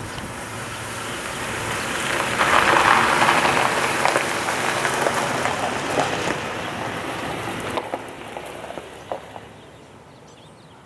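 A rushing hiss with no pitch to it, swelling about three seconds in and then fading away steadily toward the end.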